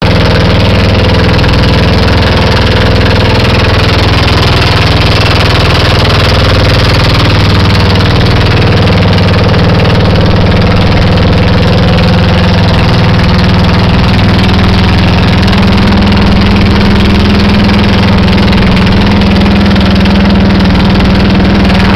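Engine of a motorized outrigger boat running steadily while the boat is underway, loud and close, with a steady rushing noise over it.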